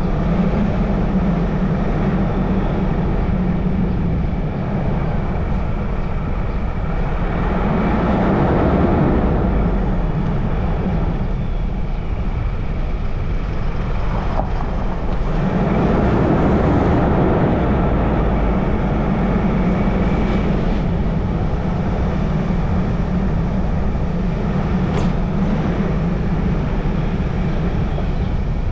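A car being driven on the road: steady engine and tyre noise, swelling louder twice, about a quarter and about halfway through.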